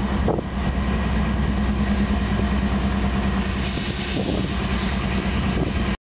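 Union Pacific diesel locomotive engine running as the locomotive rolls slowly past close by, a steady low drone. A higher hiss grows louder about halfway through.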